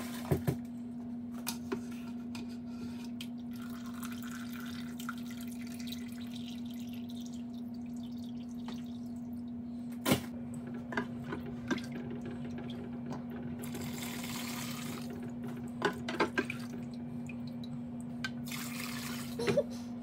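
Hot bone broth being ladled and poured through a metal mesh strainer: a few spells of pouring and splashing liquid, with sharp clinks of metal utensils, over a steady low hum.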